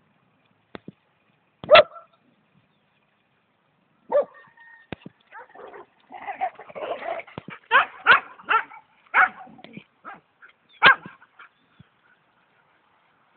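Dogs barking and yapping while they play: single sharp barks, then a flurry of overlapping yaps and barks in the middle, with a last loud bark shortly before the end.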